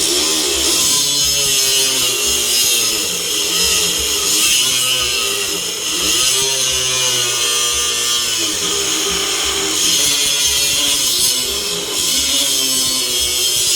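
Cordless DeWalt DCG460 9-inch angle grinder cutting thick steel plate with an abrasive cut-off wheel. There is a continuous grinding hiss, and the motor's whine wavers up and down as it loads in the cut.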